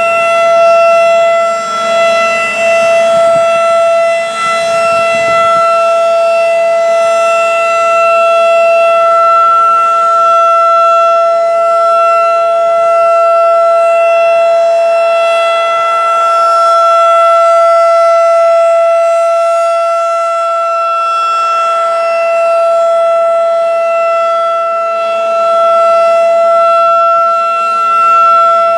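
Federal Signal 2001 'Roundback' rotating tornado siren holding a steady wail of several tones at once, its loudness swelling and fading slowly as the horn turns.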